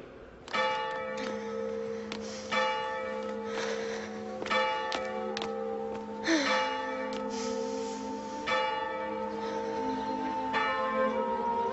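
A church bell tolling, struck six times about two seconds apart, each stroke ringing on into the next.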